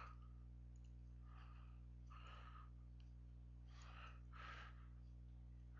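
Near silence: a low steady hum with a few faint breath sounds.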